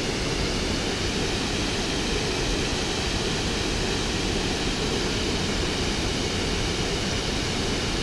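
Waterfall rushing as water pours over wide rock ledges, a steady even roar with no breaks.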